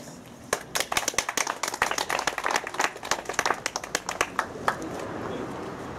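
A small group of people clapping their hands for about four seconds, starting about half a second in and dying away near the end.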